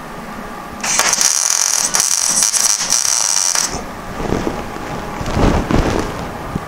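MIG welder welding a steel patch panel into a rusted car floor pan. The arc strikes about a second in with a loud, steady hiss lasting about three seconds, followed by a couple of seconds of lower, rougher noise.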